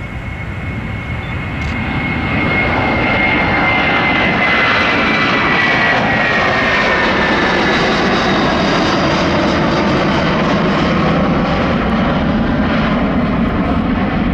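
Airbus A330-200 (A330-223) with Pratt & Whitney PW4000 jet engines at takeoff thrust, growing louder over the first few seconds and then running loud and steady. A high fan whine slowly drops in pitch as the airliner passes.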